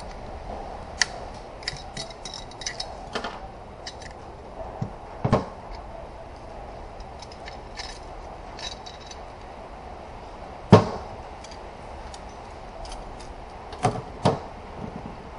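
Scattered clinks and knocks of metal transmission parts and hand tools being handled and set down, some with a short metallic ring; the loudest knocks come about 5, 11 and 14 seconds in.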